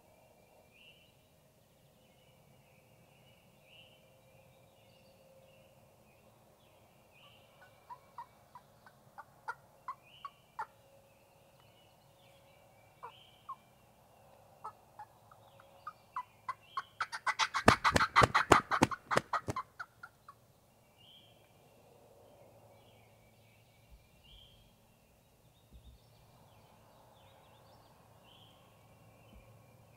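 A wild turkey gobbler gobbles once, loud and close, a rapid rattling call lasting about three seconds just past the middle. Scattered sharp single call notes come in the seconds before it, and a small songbird repeats short phrases throughout.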